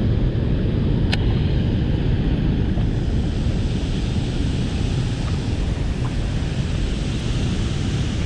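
Steady rumble of whitewater rushing below a dam spillway, with a single sharp click about a second in.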